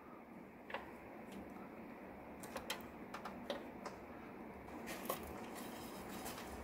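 Faint, scattered small clicks and light rubbing of a wiring harness being pushed by hand up through an opening behind a metal grille, with a few clicks bunched together midway.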